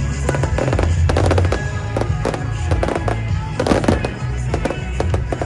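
Fireworks bursting and crackling in quick succession, with loud music and a heavy bass line playing underneath.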